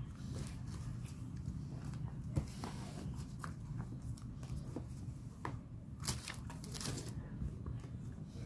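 Paper memo pads being handled and set down on a bedsheet: scattered light taps and paper rustles, with a denser rustle about six to seven seconds in, over a low steady hum.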